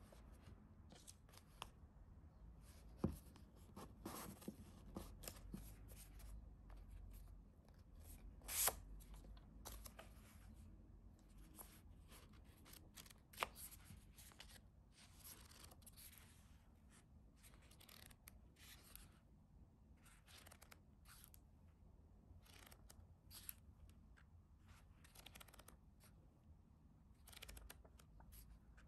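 Quiet handling of paper and stickers: dry rustles and short scraping strokes, a few a second, with a couple of louder clicks.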